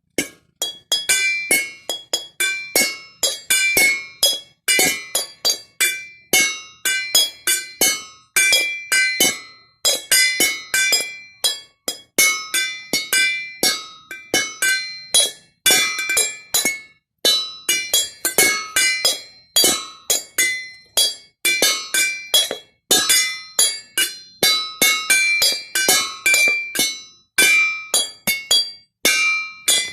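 Glasses struck in quick succession, ringing out a fast repeating ringtone tune of clear clinks on several different pitches.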